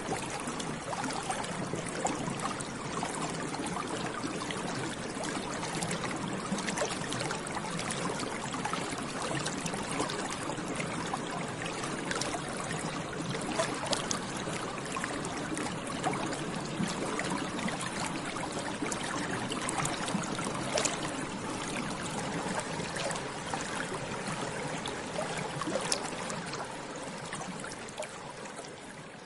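Continuous bubbling in water, a dense stream of small bubbles popping and gurgling, fading out near the end.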